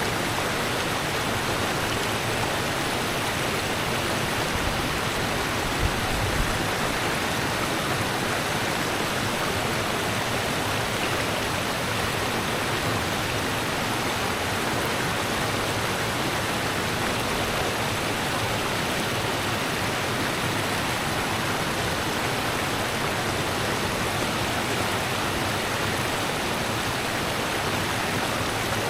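Rushing river water, a steady dense rush, with a brief low thump or two about six seconds in.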